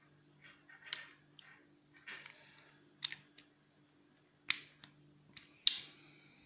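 Key being turned in a repaired ignition lock cylinder: a run of sharp mechanical clicks with short rattles between them, the two loudest clicks near the end, as the lock moves through its positions and springs back from the start position.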